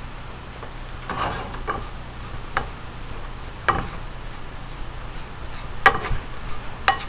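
A wooden spoon stirring fresh raspberries and sugar in a small metal saucepan on the stove, with irregular scrapes and knocks against the pot about once a second, as the berries start cooking down into a sauce.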